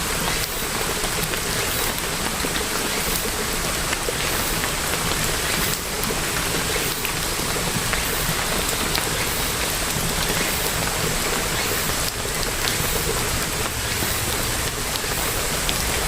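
Steady rain falling, an even hiss with scattered drops tapping through it.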